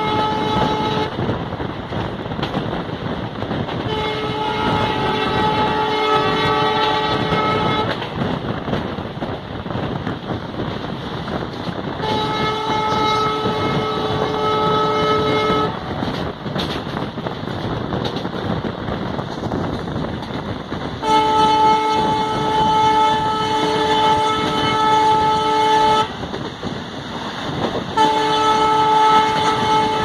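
Multi-tone air horn of an EMD WDP-4 diesel locomotive sounding five long blasts of three to five seconds each, a few seconds apart. Underneath is the steady rumble of the train running on the rails.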